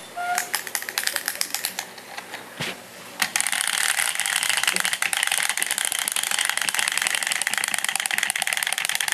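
Clockwork wind-up hopping toy: a run of separate clicks for about three seconds, then the spring motor running with a fast, steady clicking whirr as the toy hops.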